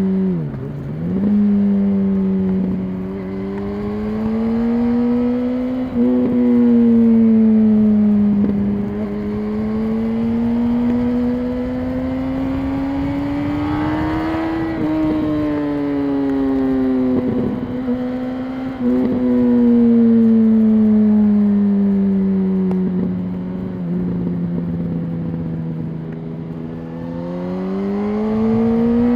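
2006 Yamaha R1's inline-four engine with its stock exhaust, running under way: the revs climb and fall slowly at moderate speed, with a quick drop and recovery near the start and a few short gear changes along the way.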